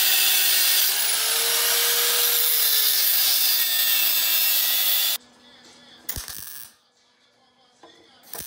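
Angle grinder cutting through a crumpled sheet-steel car body panel. Its motor whine rises a little about a second in, then sinks slowly as it bears on the metal, and it stops suddenly about five seconds in. After it comes a single sharp knock with a short ring, and a brief scrape near the end.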